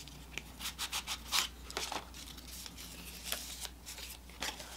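Fingers picking and scratching at the small cardboard box of a NARS blush to open it: irregular short rasps and scrapes, thickest in the first two seconds and again near the middle.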